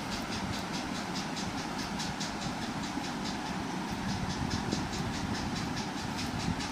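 Steady mechanical hum with an even ticking about five times a second.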